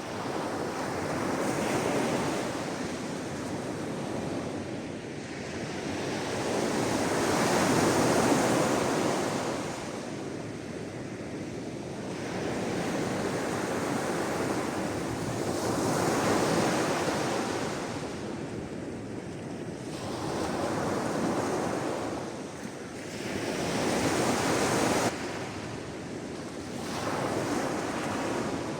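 Sea waves washing in and falling back, rising and fading in slow surges every few seconds, about six in all.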